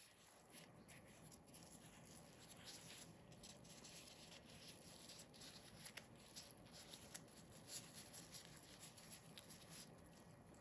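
Faint rustling and small crackling ticks of hands in disposable plastic gloves lifting and rolling a thin pancake.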